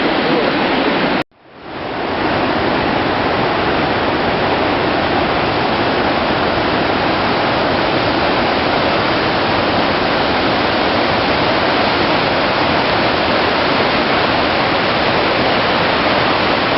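Gullfoss waterfall rushing: a loud, steady wash of falling water. It cuts out abruptly a little over a second in and fades back up within about a second.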